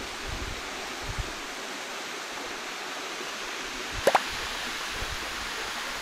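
Steady rushing of a thin waterfall, the 30 m female fall of Kasagi Fudo Falls. About four seconds in comes a short pop that sweeps upward in pitch, and there are a few faint low thumps.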